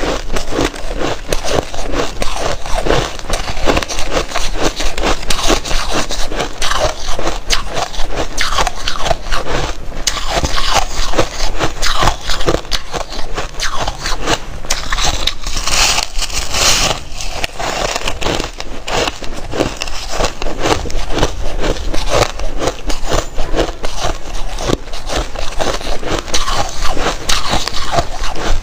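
Powdery white ice being bitten and chewed close to the microphone: loud, dense crunching and crackling that keeps going with no pauses.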